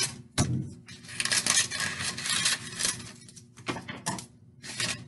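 Parchment baking paper rustling and crinkling in several bursts as it is pressed into a baking pan and trimmed with scissors, with a sharp click about half a second in.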